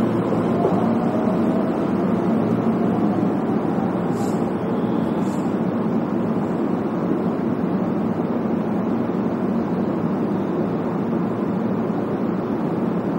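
Keihan electric train running on the line, heard from on board: a steady rumble of wheels on rails, with a faint rising motor whine in the first few seconds.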